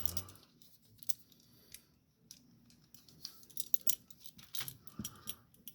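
Scattered sharp clicks and small metallic snaps of locking pliers (vise grips) being adjusted and clamped shut on rubber fuel hoses. There is a single click about a second in, then a cluster of them in the second half.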